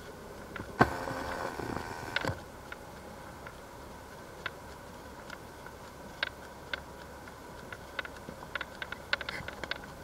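Typhoon rain and wind: scattered drops ticking irregularly against a surface over a steady rush. Just under a second in, a sharp knock opens a louder burst of noise that lasts about a second and a half.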